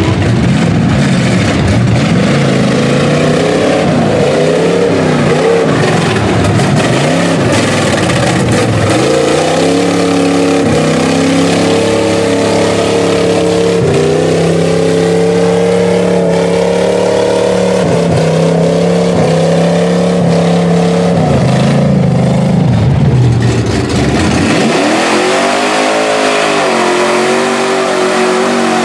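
Pickup truck engines revving hard as the trucks churn through deep mud, the pitch climbing and dropping as the throttle is worked, one truck after another. The sound changes abruptly near the end as another truck takes over.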